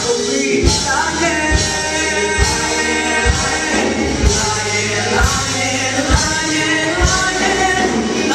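A live stage-musical number: a group of voices singing together over a band, with a strong low beat about once a second.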